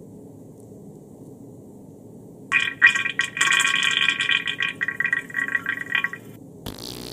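Monitor lizard's vent passing gas as green mucus diarrhea is expelled: a high-pitched, fluttering squeak starting about two and a half seconds in and lasting nearly four seconds, then a short spluttering burst near the end. It is a sign of the lizard's mucus diarrhea.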